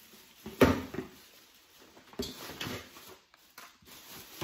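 A sharp thump of an object being put down, about half a second in. Fainter knocks and rustling of items being handled follow.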